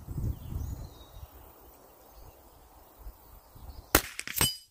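A Remington 597 semi-automatic .22 LR rifle firing one shot about four seconds in, followed half a second later by a second sharp crack with a brief ringing tone.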